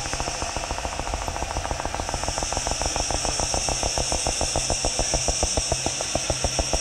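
Electroacoustic improvised soundscape: a rapid, even pulsing, several pulses a second, over a steady low hum and a high hiss, growing a little louder about halfway through.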